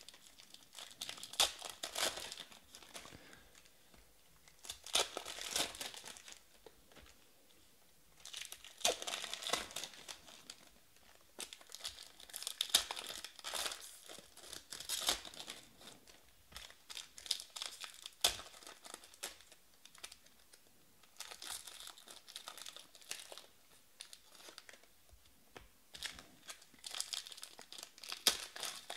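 Trading card pack wrappers crinkling and tearing as 2017/18 Panini Status Basketball packs are ripped open by hand, in bursts every few seconds with quieter spells between.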